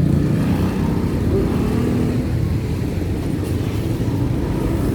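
Steady low rumble of a car engine running.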